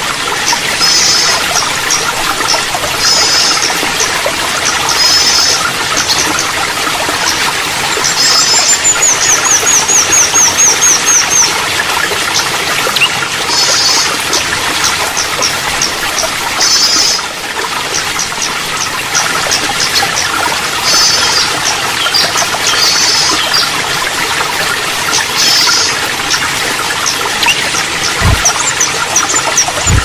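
Running water trickling steadily, with a small songbird giving short high chirping phrases every couple of seconds and a quick falling trill of rapid notes about eight seconds in. A brief low thump near the end.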